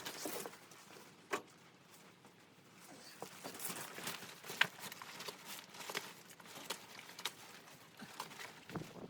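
Scattered, irregular crunching and rustling with sharp clicks, the loudest about a second and a half in and again a little past the middle.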